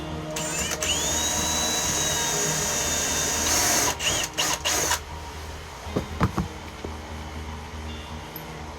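Power drill spinning up with a rising whine and running steadily, then several short loud stop-start bursts as it bites into the material, followed by a few sharp clicks.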